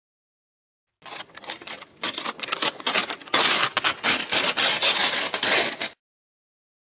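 Paper being torn slowly: it starts about a second in with scattered crackles, then becomes a continuous rip for about four seconds before stopping abruptly.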